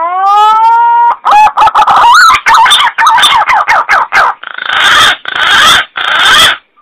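Green pigeon (punai) call: a rising whistled note, then a quick run of warbling whistles, ending in three harsh hissing notes.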